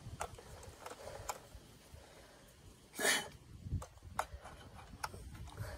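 Faint scattered clicks of a plastic toy gel blaster being handled and checked, with a short breathy rush of noise about three seconds in.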